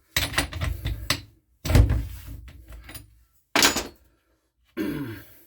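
Clunks, knocks and rattles of tools and a petrol strimmer being handled on a bench, in four separate bursts, the last with a short falling tone.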